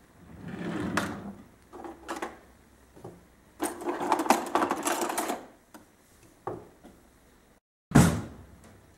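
Kitchen drawer slid open on its runners with a click, then metal cutlery and utensils rattling as a hand rummages through it. A single loud thud near the end.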